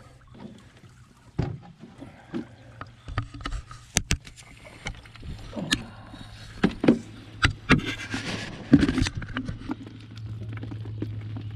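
Handling noise at a whitebait net: irregular knocks, clicks and rustles as the net's metal frame and mesh are moved about, with a scuffle a little past the middle. A low steady hum grows stronger near the end.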